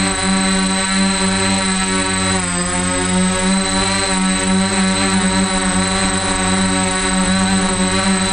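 The four electric motors and propellers of a DJI F450 quadcopter run with a steady multi-tone hum, recorded on the GoPro mounted on the aircraft. The pitch dips briefly about two and a half seconds in.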